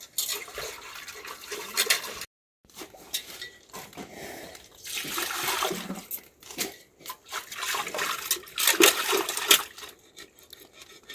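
Water pouring and splashing in uneven bursts, cutting out completely for a moment about two seconds in.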